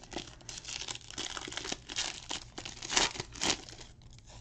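Foil wrapper of a Panini Prizm football card pack crinkling and tearing as it is peeled open by hand, with two louder crackles about three seconds in.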